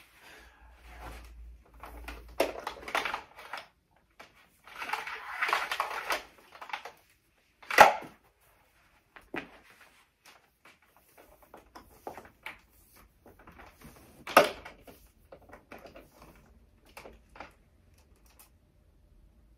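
Household tidying: intermittent rustling and clatter of things being handled and put away, with two sharp knocks, one about eight seconds in and a louder-peaked one about fourteen seconds in.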